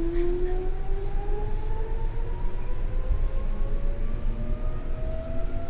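Seibu 2000 series electric train running, heard from inside the passenger car: a rumble from the wheels with several traction-motor whine tones climbing slowly and steadily in pitch as the train gathers speed.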